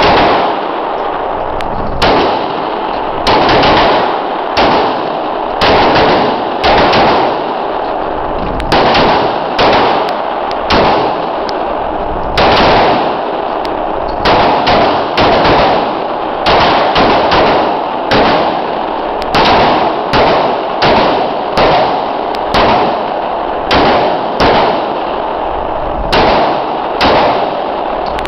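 Irregular .45 pistol shots from several shooters firing in turn, about two dozen over the stretch, some in quick pairs and runs. Each shot is sharp, with a ringing echo off the walls of an indoor range.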